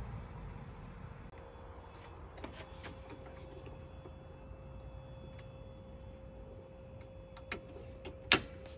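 A 2024 Toyota Tacoma Trailhunter's hood prop rod being handled, with a few light clicks, then one sharp snap about eight seconds in as it is pressed into its stowage clip.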